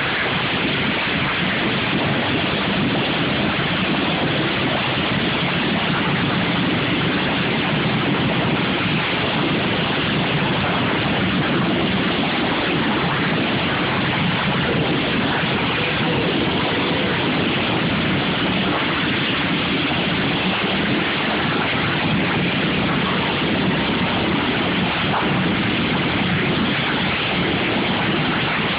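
Many lawn mower engines running together in a derby heat, blending into a loud, steady wash of noise.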